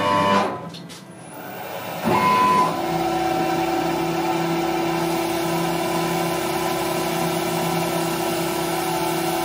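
CNC machine set running: a brief burst at the start, then the spindle motor spins up about two seconds in and settles into a steady whine, ready to cut acrylic with a 1.5 mm two-flute cutter.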